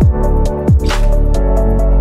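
Electronic music: sustained synth chords over a deep bass that slides down in pitch twice early on, with a snare-like hit about a second in.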